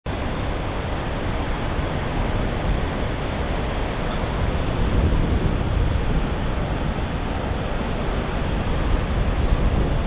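Rushing water of a large waterfall pouring over a wide crest: a steady, fairly loud rushing noise, heavy in the low end.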